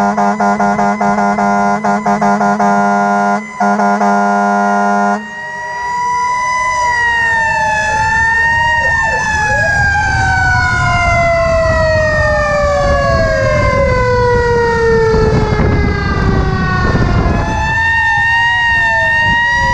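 A fire truck's air horn blown in a rapid string of short blasts, then held, with one brief break. After about five seconds, several fire-truck sirens wail together, one of them winding slowly down in pitch over several seconds.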